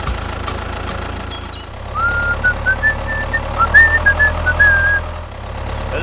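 Miniature tractor running with a steady low engine drone. A string of short, high chirping notes sounds over it from about two to five seconds in.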